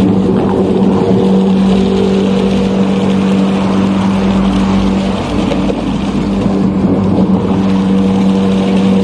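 Submersible cutting sump pump running in water with a steady electric hum over the rush and churn of water, its cutter chopping up woven plastic bags. The hum briefly weakens about five seconds in, then holds steady again.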